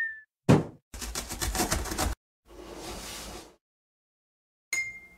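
Cartoon sound effects for an animated intro: a sharp thump as a dropped cardboard box lands, a rapid rattle lasting about a second, a whoosh, and a short bright ding near the end.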